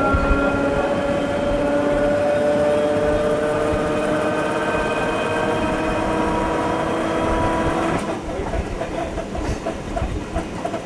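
Electric suburban train heard from the driver's cab, its traction motors whining with several tones slowly rising in pitch under a steady rumble. About eight seconds in the whine cuts off with a click, leaving the rumble of the wheels and a regular rhythmic clicking.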